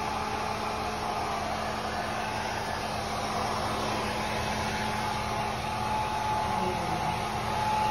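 Hand-held electric hair dryer blowing steadily: an even rush of air over a constant motor hum.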